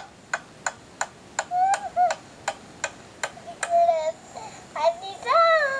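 Hammer striking a nail into a wooden board in a steady rhythm, about three strikes a second, stopping a little under four seconds in. A young child's voice sounds between the strikes and more loudly near the end.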